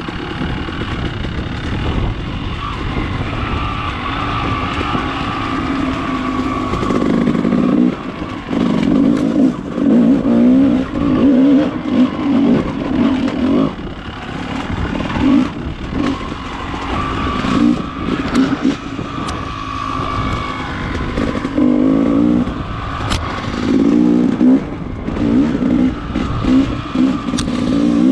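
Dirt bike engine running at low trail speed, its revs rising and falling in short bursts as the throttle is worked, with scattered clicks and knocks.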